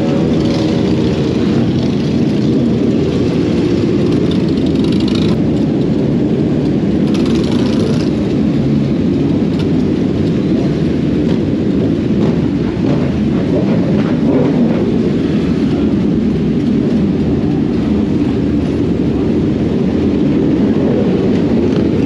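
Motorcycle on the move: a steady, loud rumble of engine and wind buffeting the microphone.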